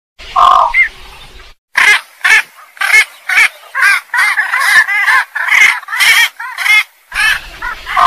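Calls of the belkok, a rice-field bird, played as a hunting lure. There is one call about half a second in, then a steady run of short, repeated calls, about two a second.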